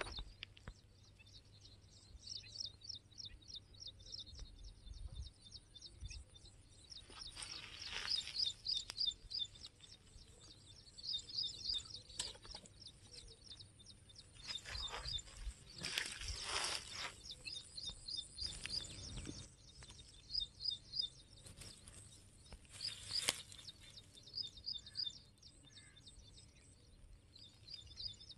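Outdoor ambience of rapid, high-pitched chirping that repeats many times a second, broken by a few short, louder noises.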